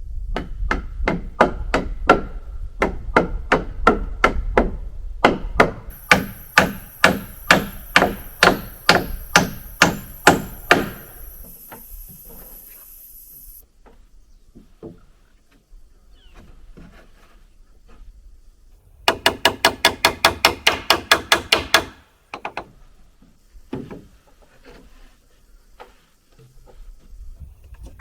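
Hammer driving nails into wooden rafter blocking, steady blows about two a second for some ten seconds. Then quieter scattered knocks, and a short run of rapid ringing strikes about two-thirds of the way in.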